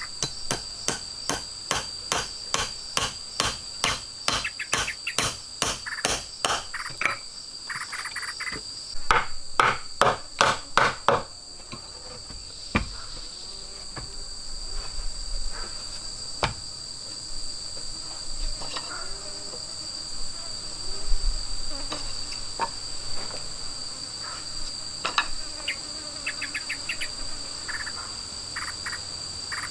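Repeated tool strikes, about two knocks a second, growing loudest just before they stop about eleven seconds in, then occasional single knocks. A steady high-pitched insect chorus drones throughout.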